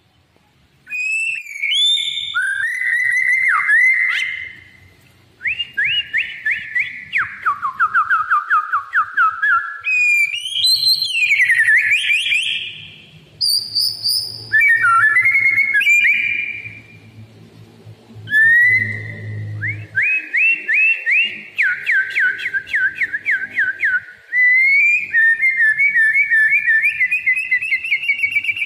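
White-rumped shama (murai batu) singing in full song: loud whistled phrases of gliding notes and fast repeated trills, with short pauses between phrases. This is the continuous, vigorous singing that bird keepers call gacor.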